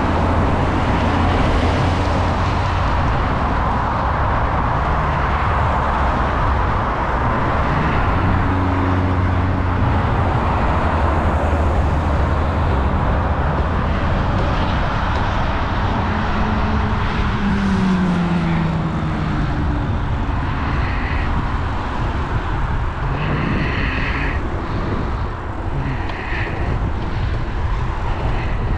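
Steady noise of road traffic on a multi-lane road, with wind on the microphone of a bicycle-mounted action camera. A passing vehicle's engine tone falls in pitch a little past the middle.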